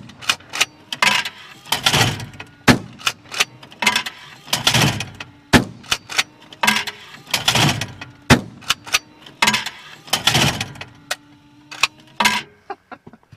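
A string of shotgun shots at clays, about one every three seconds, mixed with the sharp mechanical clacks of an automatic clay trap thrower cycling and launching.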